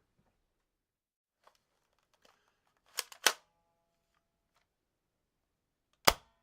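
Gun mechanism sound effect: a couple of faint ticks, then a quick run of three sharp metallic clicks about three seconds in, the last ringing briefly, and one more sharp click near the end.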